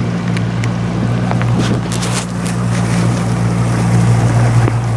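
Outboard motor of a Zodiac inflatable boat running at a steady speed, a low even hum, with water and air noise over it and a few light clicks about two seconds in.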